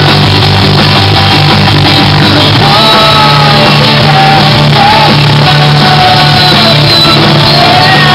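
Live rock band playing loudly: electric guitar, bass, keyboard and drums, with voices singing held, sliding notes over the top.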